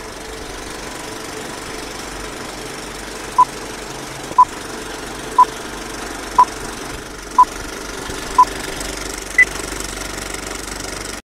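Old film-leader countdown sound effect: a steady film projector clatter with a short beep once a second, six times starting about three seconds in, then one higher-pitched beep. The sound cuts off abruptly near the end.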